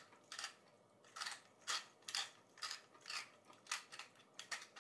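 Hand-twisted spice mill grinding over a frying pan: a steady series of short grinding rasps, about two twists a second.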